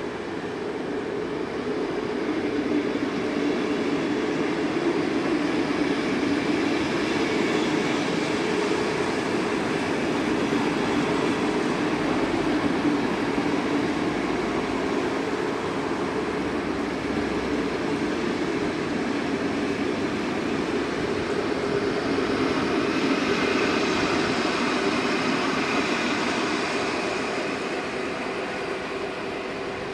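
Passenger train coaches rolling past on the rails, a steady rumble of wheels on track that builds over the first couple of seconds and fades near the end.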